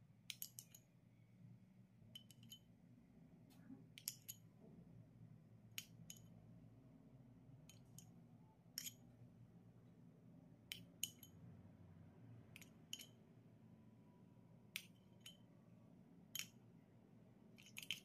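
Small metal spoon clinking against a glass bowl while scooping out thick yogurt: light, ringing clinks at irregular intervals, some in quick pairs, over faint room hum.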